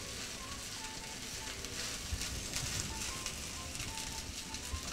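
Rice in a spinach and coconut-milk sauce sizzling steadily in an oiled frying pan over a gas flame, with faint background music of short held notes.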